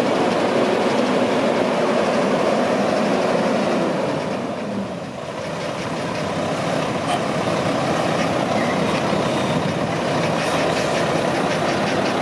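Mack AC 400 hp inline-six diesel of a 2007 Mack CXN613 day cab tractor idling steadily. The sound drops briefly about five seconds in, then comes back.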